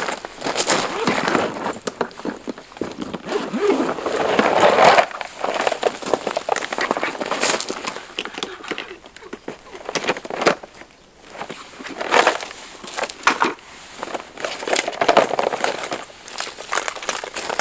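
Camping gear being handled and set up by hand: irregular rustling and crinkling with many small clicks and knocks, easing off briefly past the middle.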